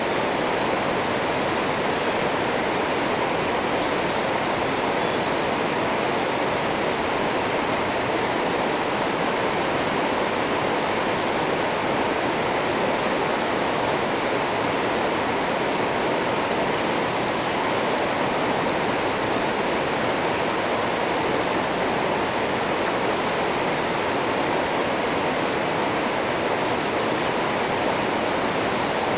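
River rapids rushing over rocks: a steady, unbroken rush of white water.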